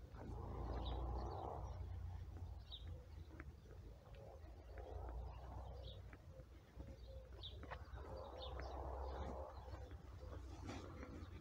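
Birds calling: scattered short high chirps, with three longer, lower calls spaced a few seconds apart, over a low steady rumble.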